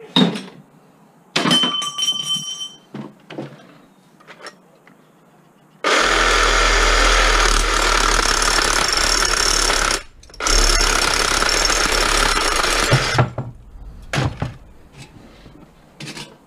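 Cordless reciprocating saw cutting through scrap copper pipe next to a brass fitting: two runs of steady, buzzing sawing, about four seconds and then three, with a short stop between. Before it, metal pieces clink and ring as they are handled and dropped, and a few more knocks follow near the end.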